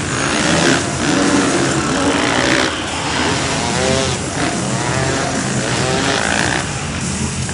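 Freestyle motocross motorcycle engines revving, several rising and falling bursts of revs.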